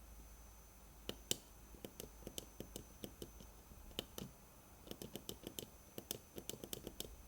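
Small tactile push buttons on a control board being clicked, single presses at first and then quick runs of presses, while the turn-count value is being set. A faint steady hum lies underneath.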